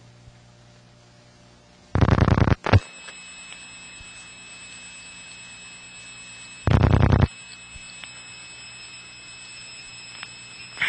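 Telephone-line audio through a step-by-step central office: two short, loud, buzzing bursts of rapid pulses about five seconds apart, over steady line hiss with faint high-pitched tones.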